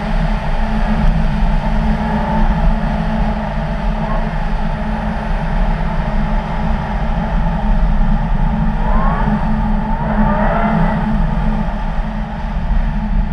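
Audi car driving on a snow-covered ice track: the engine runs steadily under heavy tyre and road noise. Around nine to eleven seconds in, the engine pitch rises as it accelerates.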